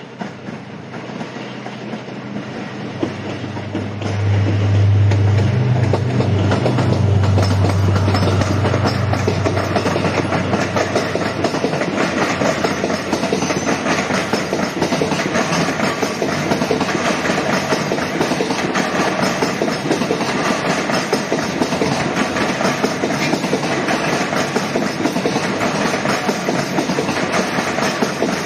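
A freight train led by a JR Freight DF200 diesel-electric locomotive passes close by. The sound builds as it approaches, and the locomotive's engine drone is loudest from about four to nine seconds in. After that comes the steady rumble and wheel clatter of the tank wagons rolling past.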